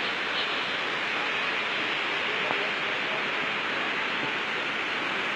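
Steady rushing water, a continuous even hiss that does not let up, with faint voices underneath.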